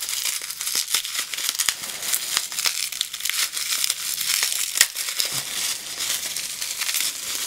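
Plastic bubble wrap crinkling and crackling with many small sharp clicks, as it is worked off a small glass essential-oil bottle by hand.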